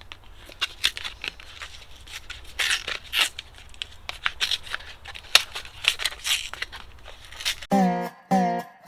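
Package of new D-cell batteries being torn open by hand, with irregular crinkling and tearing of the packaging. Guitar music comes in near the end.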